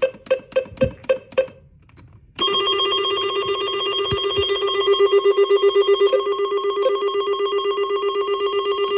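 AlertWorks EAR-10 weather alert radio running an alert test: about six quick, evenly spaced beeps, then about two and a half seconds in a loud, steady warbling alert tone starts and holds.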